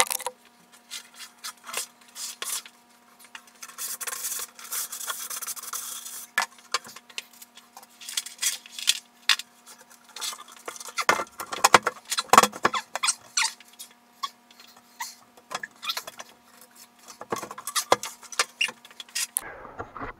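Plywood panel being handled and fitted: scraping and rubbing against the desk top and wall, with scattered knocks, and a longer scrape about four seconds in. A faint steady hum runs underneath and stops near the end.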